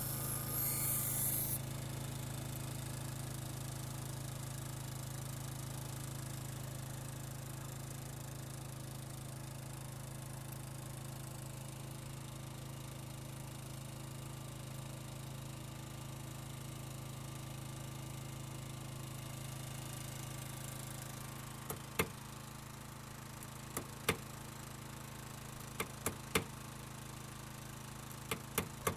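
Scissors ground on a small electric bench grinder: a hissing metal-on-stone grind that stops about a second and a half in, after which a steady low motor hum goes on. Near the end, several sharp hammer taps.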